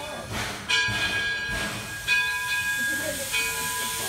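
Steam locomotive's bell ringing as the train gets under way: three strokes about a second and a half apart, each ringing on and fading, over a steady hiss of steam.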